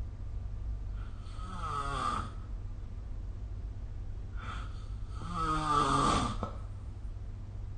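A sleeping person snoring: two snores about four seconds apart, each with a pitch that falls as it goes, the second longer and louder. A steady low hum runs underneath.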